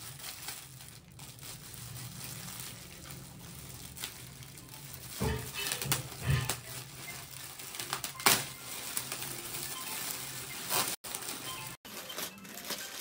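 Gift packaging being opened by hand: crinkling and rustling with scattered light clicks, and one louder sharp click about eight seconds in.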